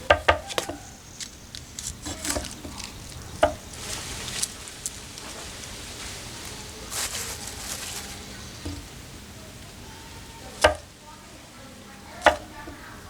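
Food sizzling in a cooking pan, with scattered knocks and scrapes of a utensil against the pan; two loud knocks come near the end.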